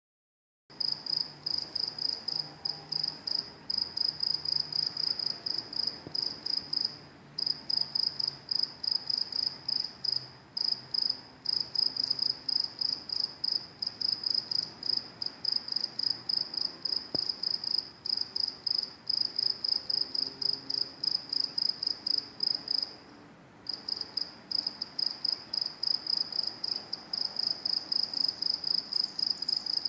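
Crickets chirping: a fast, even run of high-pitched chirps, breaking off briefly twice.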